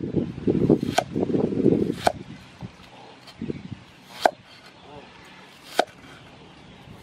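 A cleaver slicing an onion on a wooden chopping board: about five sharp knocks of the blade striking the board, one to two seconds apart. A denser, lower sound fills the first two seconds.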